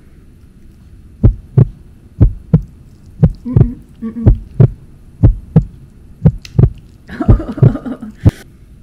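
Heartbeat sound effect: loud paired low thumps, lub-dub, about one pair a second. A brief cluster of higher sounds joins it about seven seconds in.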